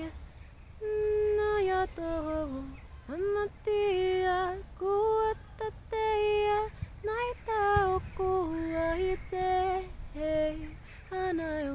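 A woman singing solo and unaccompanied in improvised, wordless 'light language' syllables: a run of held notes and short sliding phrases with brief breaks between them, including a swooping rise about three seconds in.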